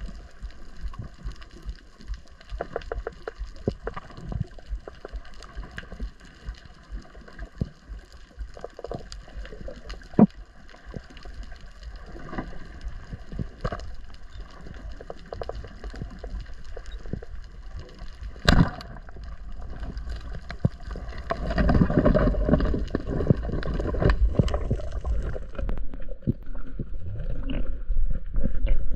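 Muffled underwater sound picked up by a camera below the surface: a low rumble of water with scattered clicks, one sharp click a little past halfway, and a louder gurgling rush over the last third.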